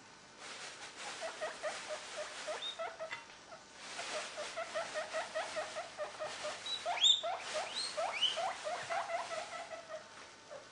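Pet squirrel giving rapid chattering squeaks, several a second, in two bouts with a short break about three and a half seconds in. Around seven seconds in, a few calls sweep sharply upward into higher squeals.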